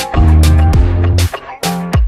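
Background music with a beat: a deep bass line, sharp drum hits, and a bass note that slides down in pitch near the end.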